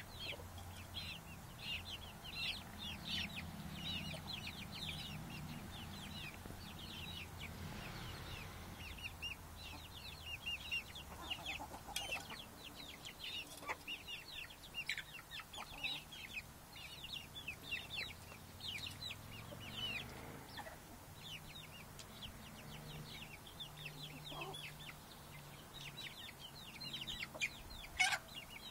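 A flock of chickens clucking while feeding together. There is a constant chatter of many short, high calls overlapping one another, with a sharp click near the end.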